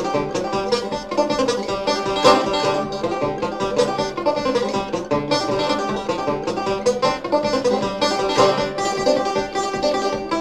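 Banjo played clawhammer style: an old-time tune in a steady, unbroken run of plucked notes.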